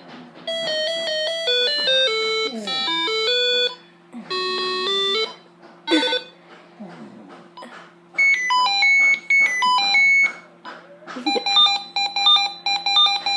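Mobile phone ringtone: a bright electronic melody of short stepped notes, played in phrases with brief pauses between them.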